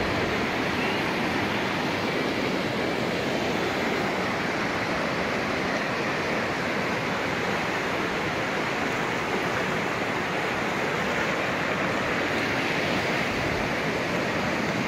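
Steady, even rush of flowing stream water.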